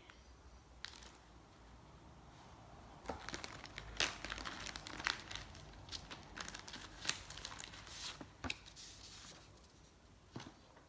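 Paper or plastic packaging being handled, crinkling and rustling in a run of sharp crackles that starts about three seconds in and dies down near the end.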